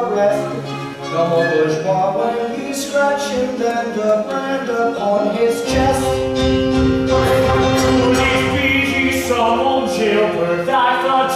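Singing over an orchestral accompaniment from a live stage musical. From about six seconds in, a fuller, sustained accompaniment with deep low notes comes in under the voices.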